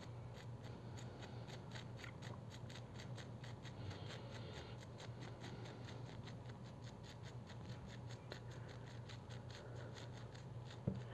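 Toothbrush bristles scrubbing the metal charging pins of a wireless earbud, wet with isopropyl alcohol. The brushing is faint and comes as a rapid, even run of short scratchy strokes, cleaning dirt and oxide off the contacts that keep the earbud from charging.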